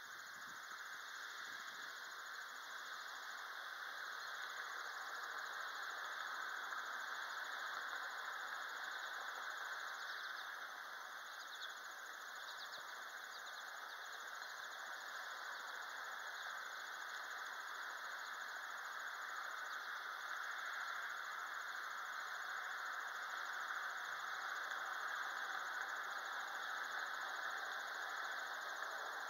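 Steady outdoor ambience: an even hiss through the middle and high range, with a few faint high chirps about ten to thirteen seconds in.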